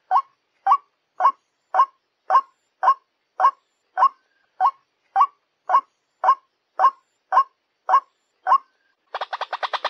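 White-breasted waterhen lure call: a single croaking note repeated steadily about twice a second, about sixteen times. Near the end it breaks into a fast, dense chattering run of notes.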